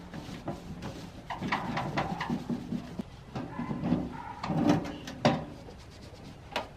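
A rag wiping and scrubbing the old painted steel carrying case of a Craftsman circular saw, with several light knocks as the case and its latches are handled.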